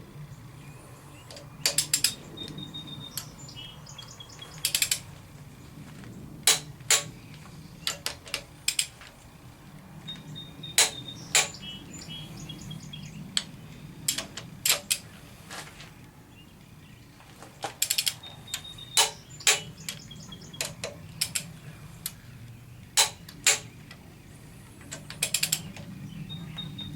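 Torque wrench tightening cylinder head bolts on a 383 stroker small-block Chevy: sharp metallic clicks, often in pairs or quick clusters every second or two, some with a short ringing note, over a steady low hum.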